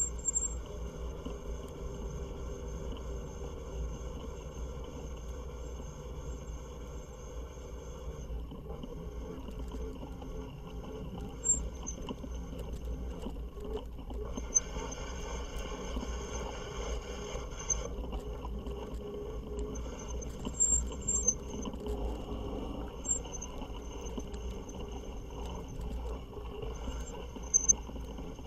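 Fat-tire e-bike's electric motor whining at a steady pitch while riding, over a constant low rumble. The whine fades at about eight seconds and comes back stronger a few seconds later.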